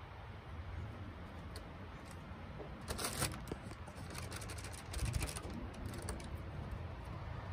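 Waxed-paper wasp-nest decoy lantern rustling and crinkling as it is handled and adjusted, in short bursts about three seconds in and again around five to six seconds, over a faint low rumble.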